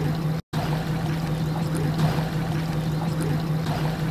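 Water sloshing and trickling over a steady low motor hum. The sound cuts out completely for an instant about half a second in.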